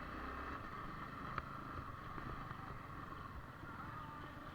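Motorcycle engine running steadily under way, with a single sharp click about a second and a half in.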